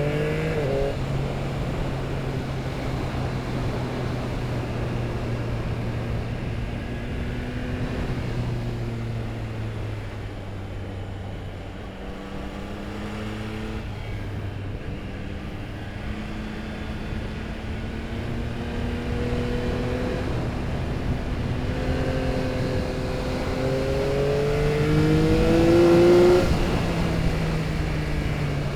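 Yamaha R9's 890 cc inline-three engine through an Akrapovic exhaust, heard from on board while riding. It runs steadily at first, drops back about twelve seconds in, then climbs in pitch and gets louder to its loudest point about 26 seconds in, easing off just after.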